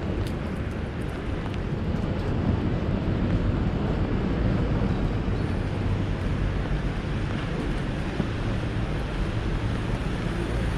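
Steady city street noise in heavy rain: motor traffic running past on a wet road, with a constant hiss of rain and tyres.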